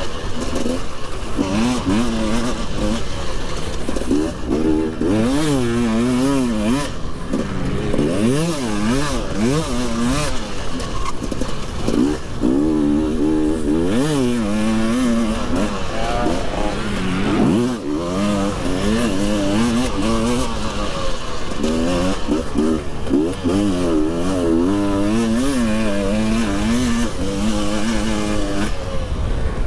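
Husqvarna two-stroke motocross bike ridden hard, its engine revving up and dropping back over and over through gear changes and corners, with a brief lift off the throttle about two-thirds of the way through. Wind rushes across the onboard microphone.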